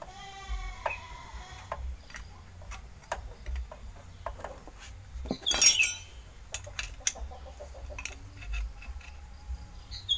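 Steel T-handle wrenches and a motorcycle disc-brake caliper clicking and clinking as they are handled. Animal calls sound in the background, the loudest about halfway through.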